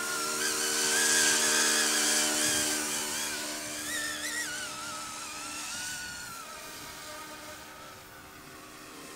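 Electric RC AH-64 Apache scale helicopter in flight: a motor whine that wavers up and down in pitch over a steady rotor hum. It is loudest about a second in, then fades as the helicopter flies off into the distance.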